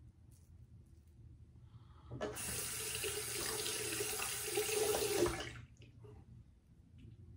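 Bathroom sink tap running in a steady stream for about three and a half seconds, starting and stopping abruptly, as the safety razor is rinsed under it between shaving passes; a light knock sounds just before the water is turned off.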